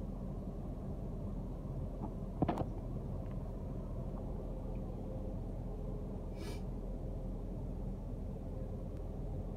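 Steady low rumble of a car heard from inside its cabin, with one short knock about two and a half seconds in and a brief hiss about six and a half seconds in.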